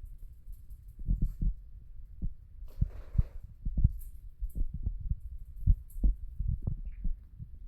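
Irregular soft low thumps and bumps, at times several a second, with a brief rustle about three seconds in and faint high chirps now and then.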